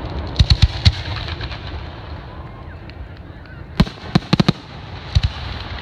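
Fireworks going off: a quick run of about four sharp bangs just after the start, another run of four or five about four seconds in, and a pair near the end, over a steady background hiss.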